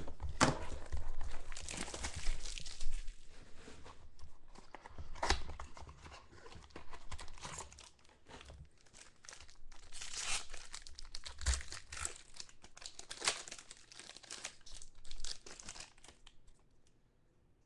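Foil trading-card pack wrapper being crinkled and torn open by hand, with irregular crackling rustles and scattered sharp clicks, loudest in the first few seconds and dying away near the end.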